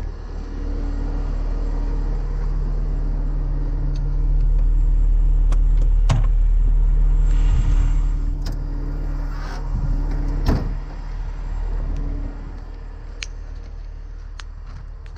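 Heavy truck's diesel engine idling steadily; it grows louder about four seconds in and eases off again about twelve seconds in. A couple of sharp clicks or knocks sound over it, about six and ten seconds in.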